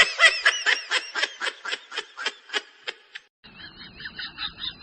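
A fast run of high chirping animal calls, about five a second, stopping about three seconds in. A softer run of similar chirps starts just after.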